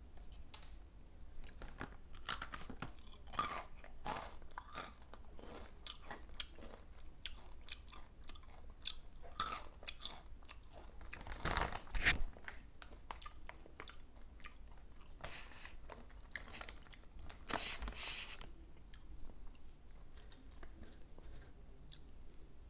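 Loud, crisp crunching and chewing of spicy corn snacks, Takis Fuego rolled tortilla chips and Flamin' Hot Cheetos. Dense runs of sharp crunches peak just before the middle and thin out over the last few seconds.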